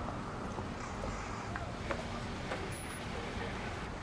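Steady outdoor street noise with a low traffic hum and faint voices, and a few light clicks.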